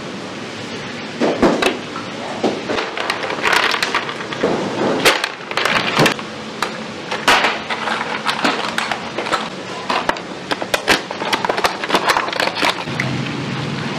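Shellfish shells clattering against stainless steel trays and each other: a quick, uneven run of sharp clicks and clacks.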